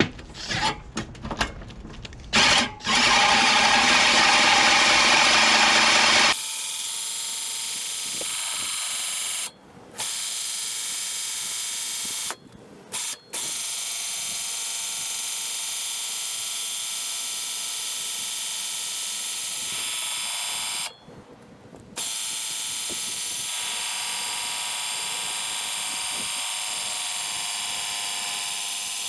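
Cordless drill running in reverse, spinning a reel mower's blade reel through a socket on its shaft. The blades are coated in valve grinding compound and lap against the bed bar to sharpen. A few short trigger pulses come first, then steady running, quieter from about six seconds in, with three brief stops.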